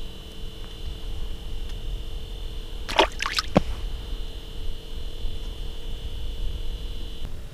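Wind rumbling on the microphone on open ice, with a faint steady high whine that cuts off near the end and a couple of brief squeaky clicks about three seconds in.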